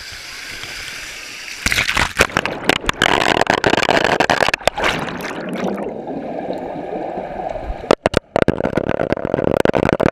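Water rushing and splashing on a water slide, loud from about two seconds in; from about six seconds it turns to the muffled gurgling of water heard from under the surface.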